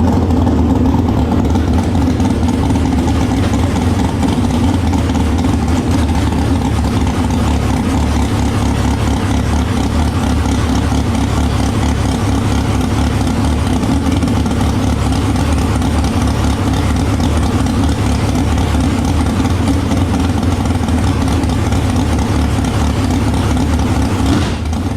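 A loud car engine running steadily at an unchanging speed. It drops away near the end.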